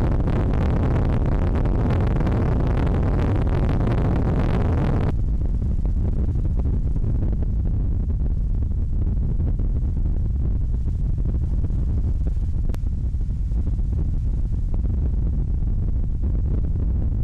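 Wind buffeting the microphone at sea: a steady low rumble, with a louder rushing hiss over it for the first five seconds that stops abruptly.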